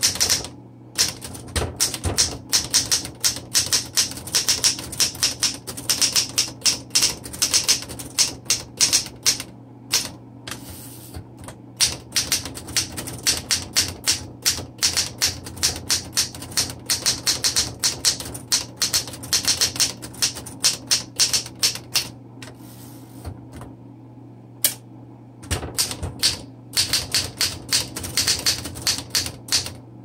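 Typing on a 1929 Royal 10 manual typewriter: a fast, uneven run of key strikes and typebar clacks against the platen, broken by two short pauses, about ten seconds in and about twenty-five seconds in.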